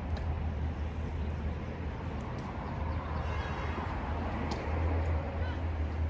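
Steady low rumble, with a few faint sharp clicks and a brief faint voice about halfway through.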